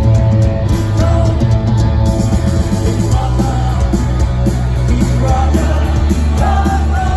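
Punk rock band playing live, with a sung lead vocal over a heavy bass line.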